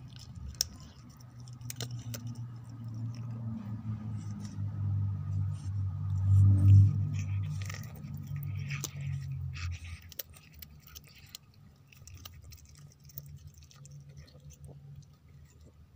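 Ginger cat chewing and crunching food off a tile floor: a run of small, irregular crunches and clicks. Under it a low rumble swells over the first few seconds, is loudest about six and a half seconds in, and dies away about ten seconds in.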